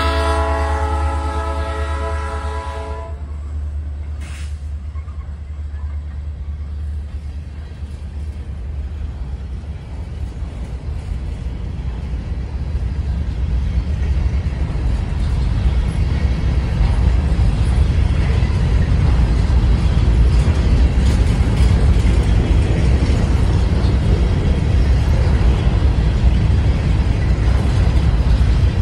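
Freight locomotive's air horn sounding a multi-note chord for the first few seconds, then the steady rumble of a freight train's wheels on the rails as covered hopper cars roll past, growing louder toward the end.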